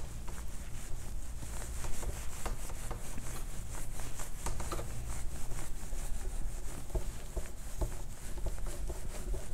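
Cloth rubbing across a whiteboard, wiping off marker writing in short, irregular strokes.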